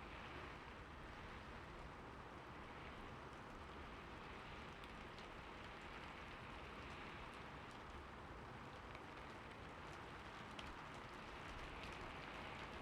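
Steady rain falling, with scattered individual drops ticking through the even hiss.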